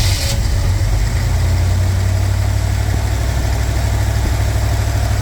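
1976 Chevy G10 van's engine idling steadily right after catching on its first cold start, running on a newly installed Edelbrock carburetor.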